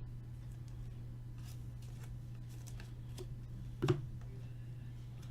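Faint rustling and light ticks of trading cards being handled and slid through by hand, over a steady low electrical hum. There is one short, louder sound about four seconds in.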